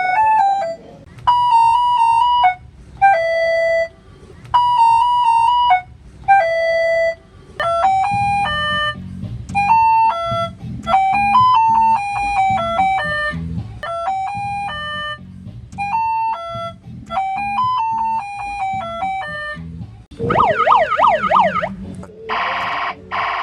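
Electronic sound effects from a Formula 3000 funfair car ride's sound unit: a string of short synthesized beeping jingles with brief pauses between them, then a warbling siren sweep and, near the end, loud buzzer blasts.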